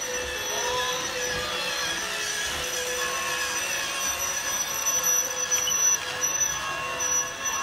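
Toy Christmas train set's small electric motor whirring and its wheels running on the track as the locomotive and cars pass close by. The sound is steady and a little louder about five to six seconds in.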